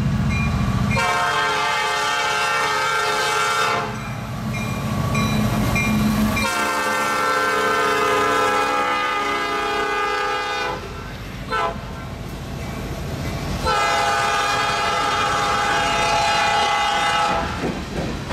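Diesel freight train's lead-locomotive air horn sounding the grade-crossing signal, long, long, short, long, as the train passes close by under power. Between blasts the locomotives' diesel engines rumble, and wheels clack over the rail as the tank cars roll past near the end.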